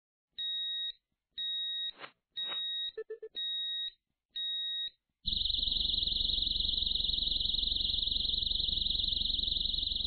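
Xena motorcycle disc lock alarm giving five short high beeps, about one a second, then from about halfway sounding its continuous shrill alarm tone. This is the lock's movement warning followed by its full alarm. A couple of light knocks fall between the beeps, and a low rumble runs under the alarm.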